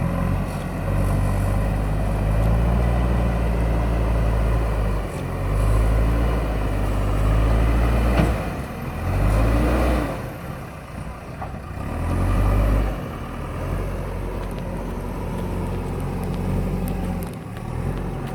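JCB backhoe loader's diesel engine running under work load, its note swelling and dropping several times, with a single sharp knock about eight seconds in.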